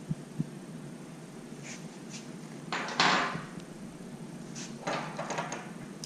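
Hands working on a vacuum pump's oil-line fittings: a few short clicks and knocks, a louder rasping scrape about three seconds in, then a quick cluster of clicks as parts are loosened and handled.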